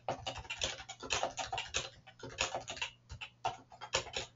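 Typing on a computer keyboard: a fast run of key clicks in short clusters with brief pauses between them.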